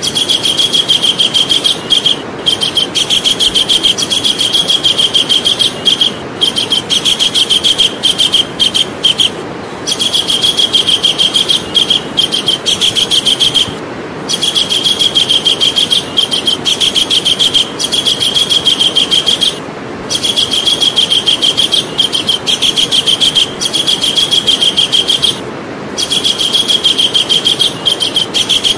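Javan kingfisher calling: a fast, rattling run of high notes repeated in long bursts with brief pauses between them, over a steady background hiss.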